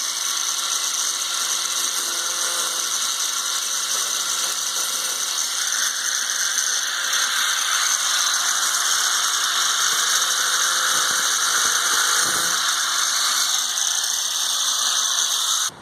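High-speed electric cutting tool of the grinder type running steadily, cutting along a body crack whose end has been drilled to stop it spreading. A constant motor whine with a hiss that grows harsher in the middle, then cuts off abruptly near the end.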